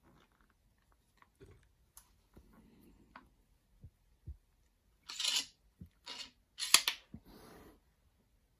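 A lever-operated lathe tailstock being handled: faint clicks of its metal parts, then from about five seconds in a few short scraping rustles with sharp clicks, the loudest near seven seconds.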